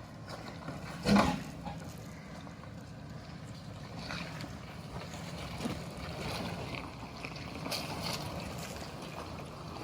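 Toyota Tacoma pickup engine running at low speed as the truck crawls a dirt and rock trail, with one loud knock about a second in and a few lighter knocks after.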